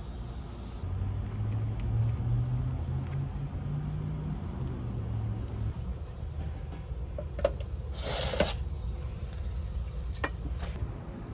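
Clicks and knocks of a welder's plastic power plug being handled and pushed into a 240-volt wall receptacle under its metal flip cover, with one short, louder scrape about eight seconds in. A low hum runs through the first half.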